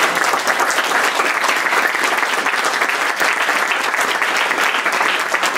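Audience applauding: many hands clapping at an even level.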